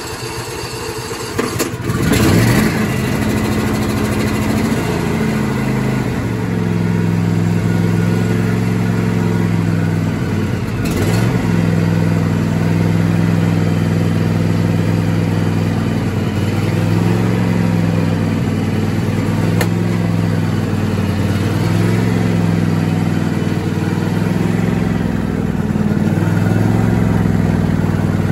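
John Deere D155 riding mower's V-twin engine, cold-started on full choke. The starter cranks for about two seconds before the engine catches. It then runs steadily, its speed wavering up and down now and then as it warms on choke.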